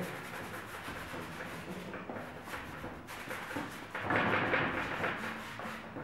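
A paintbrush scrubbing acrylic paint onto canvas in broad rubbing strokes, louder for about a second around four seconds in.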